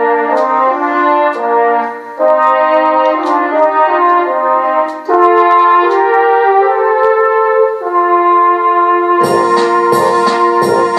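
Electronic keyboard playing a brass-band introduction in a brass voice: loud held chords that change every two or three seconds. About nine seconds in, a steady rhythm accompaniment with a regular beat comes in under the chords.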